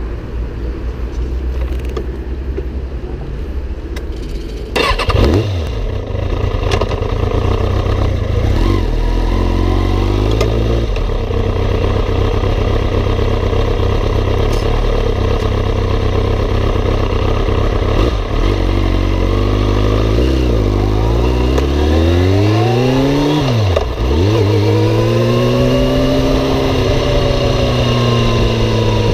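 Kawasaki ZX-6RR's inline-four engine, heard close to its carbon-fibre exhaust can, starting suddenly about five seconds in and then idling steadily. Around twenty seconds in its pitch swings up and down as the bike moves off, then it settles into a long rise and gentle fall in pitch under way.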